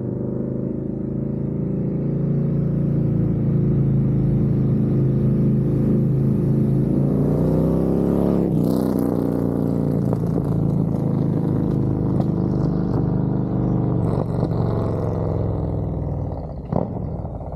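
Harley-Davidson Road Glide V-twin with a Screaming Eagle Stage 2 511 cam, running through a Thumper Moto stainless 2-into-1 exhaust as the bike is ridden. It builds in loudness over the first couple of seconds, climbs in pitch under acceleration about eight seconds in with a break like a gear change, then holds steady before easing off near the end.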